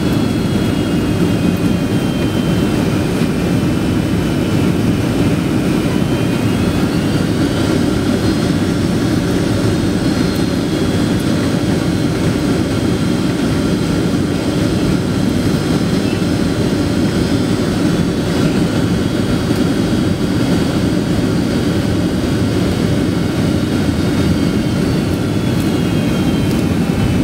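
Jet airliner cabin noise on final approach: a steady low rush of engines and airflow with a high engine whine. The whine rises in pitch about eight seconds in as thrust comes up, and falls back near the end as the power is eased off before touchdown.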